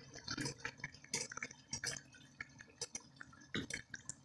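Chicken pieces in oil crackling faintly in a stainless steel pot: irregular small pops and ticks, a few a second.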